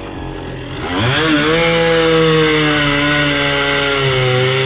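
Petrol chainsaw's two-stroke engine idling, then throttled up about a second in and held at high revs.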